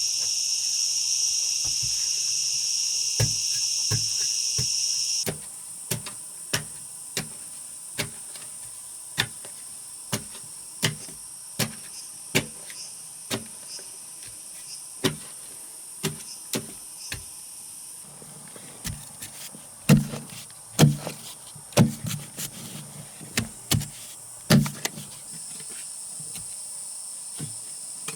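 Insects chirring steadily with a high, even buzz, cutting away about five seconds in to a run of sharp knocks, one or two a second, that grow heavier and closer together near the end; the insect chirring comes back a few seconds before the end.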